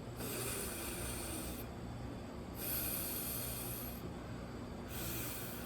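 A man hissing the voiceless 'th' sound (as in 'think') three times, each a breathy rush of air with no voice behind it, the first two held over a second and the last shorter. It is the unvoiced th demonstrated for phonics.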